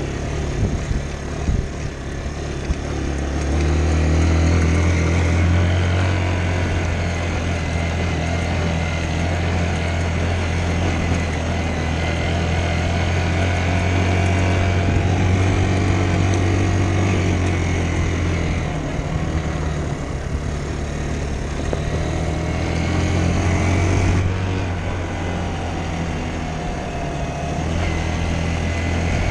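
Dirt bike engine running steadily while being ridden, its pitch rising about three to four seconds in and dipping briefly around nineteen and again around twenty-two seconds as the throttle changes.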